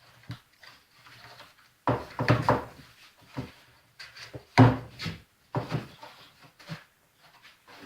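Plywood corner clamp blocks knocking and rubbing as they are handled and the rope around them is tightened: irregular wooden clunks, the loudest about two seconds in and near the middle.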